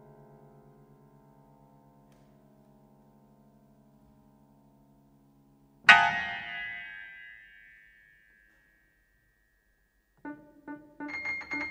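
Contemporary piano and electronics music. A low sustained tone with a slow pulsing beat fades away. About six seconds in, a single loud, bright piano attack rings out and dies over a couple of seconds, one high tone lingering, and near the end short detached piano notes begin.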